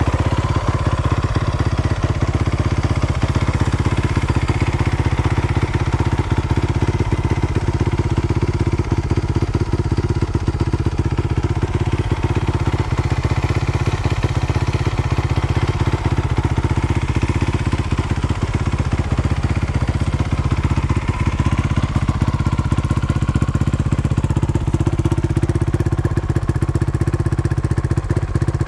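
2017 Honda CRF450R's single-cylinder four-stroke engine idling steadily, a rapid even low pulsing with no revving.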